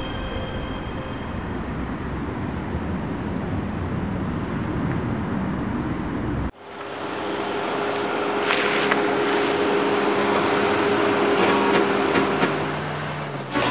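Road traffic noise: a steady rumble of passing vehicles. About halfway through it cuts off abruptly and gives way to a brighter vehicle noise with a steady hum, which fades near the end.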